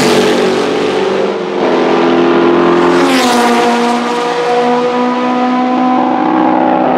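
Racing sports cars going past at speed on a circuit: one passes right at the start and another about three seconds in, each engine note dropping in pitch as it goes by. A steady, high-revving engine note from cars further off carries on between and after the passes.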